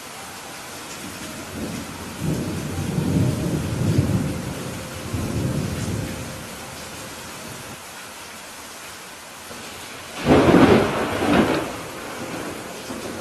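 Thunderstorm: steady rain with rolling thunder, a low rumble from about two to six seconds in, then a sharper, louder thunderclap about ten seconds in.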